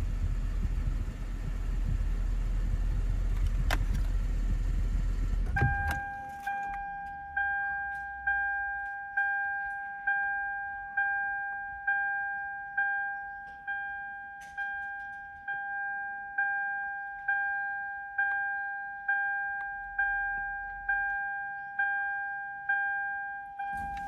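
A car's air-conditioning blower and running car give a steady rush with a low rumble. About five and a half seconds in, this cuts off abruptly. After that, a single-pitched electronic warning chime repeats about once a second, each beep fading quickly.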